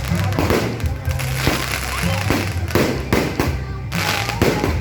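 Fireworks going off in a rapid string of sharp bangs, about two a second, over loud music with a steady low bass and some voices.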